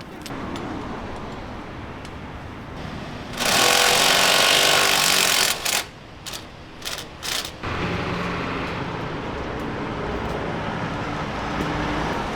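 Pneumatic impact wrench running in one loud burst of about two seconds, then triggered in three or four short bursts. After that, a steady lower machine hum carries on.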